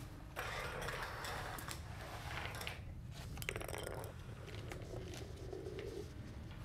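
A drinking glass knocking and rolling on a wooden floor, after a stretch of rustling, over a steady low hum.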